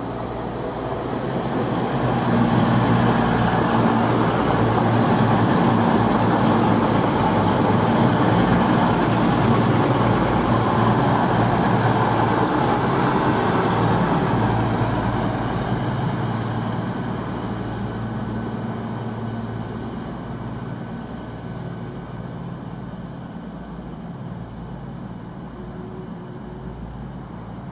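CrossCountry Class 220 Voyager diesel multiple unit running past along the platform, its underfloor diesel engines and wheels on the rails. The sound grows over the first couple of seconds, stays loud while the cars go by close, then fades steadily as the train draws away.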